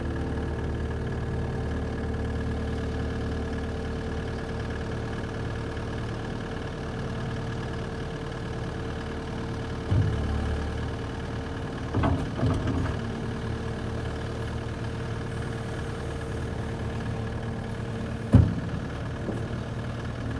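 Cat 262D skid steer's C3.3B diesel engine idling steadily. A few clunks come about halfway through, and a sharper knock near the end.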